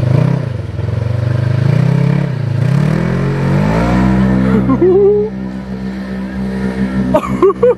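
Side-by-side UTV engine working hard as the machine ploughs through deep water. Its pitch wavers and dips, climbs about three seconds in, then holds high and steady.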